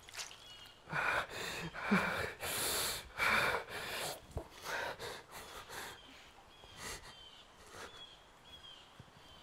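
A man's heavy, pained breathing and strained gasps as he works on a bleeding leg wound, strongest in the first half and then quieter.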